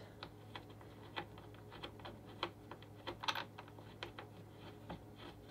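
Faint, irregular small clicks and ticks of a hand-turned metal clamp screw with a wooden knob being tightened, clamping a wooden comb holder to a table edge; the loudest click comes about three seconds in.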